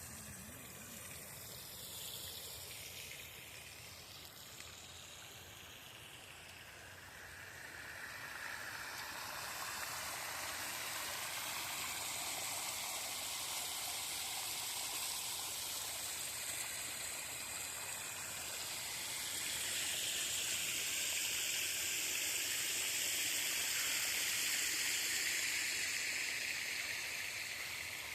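Hot spring water running and trickling over calcite terrace pools. It is a steady wash of running water that grows louder after about eight seconds and again in the last third.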